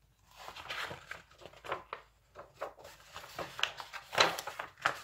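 Paper rustling as the pages of a large picture book are handled and turned: a string of short swishes and scrapes, loudest near the end.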